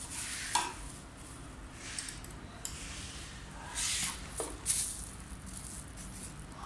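Plastic bubble wrap rustling and crinkling in several short bursts as it is handled, with light handling knocks on the scooter's front fork.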